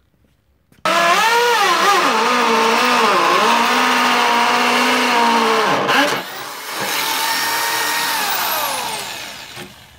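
Handheld electric drill boring holes through the steel bracket and mower deck. The motor starts suddenly about a second in, its whine wavering under load, dips briefly around six seconds, runs steady again, then winds down with a falling pitch near the end.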